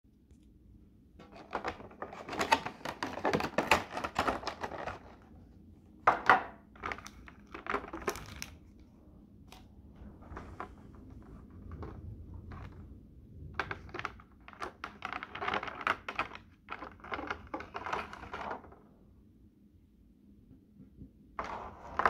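Handling and opening of a model aircraft's cardboard box and clear plastic blister tray: irregular clusters of rustling, crinkling and clicking, with a sharp knock near the end.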